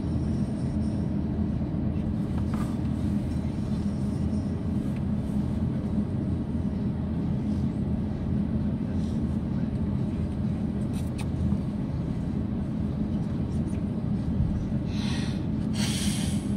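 Steady low rumble inside the cabin of an Airbus A350-900 taxiing, from its idling engines and the rolling airframe. Two short hiss-like noises come near the end.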